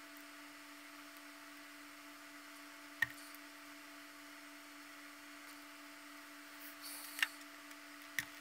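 Quiet room tone with a steady hum, broken by three small sharp clicks of plastic puzzle parts being handled and fitted: about three seconds in, about seven seconds in after a light rustle, and once more near the end.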